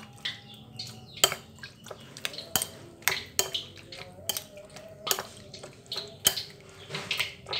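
Metal spoon clinking against a glass bowl at irregular intervals while mixing raw catfish pieces with egg.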